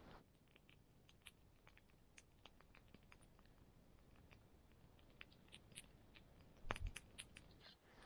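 Wood campfire crackling faintly: scattered small pops and snaps from the burning wood, with a few louder snaps near the end.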